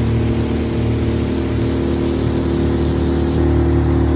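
Tiller-steered outboard motor running steadily, pushing a small fishing boat under way. The engine note shifts slightly and gets a little louder about three and a half seconds in.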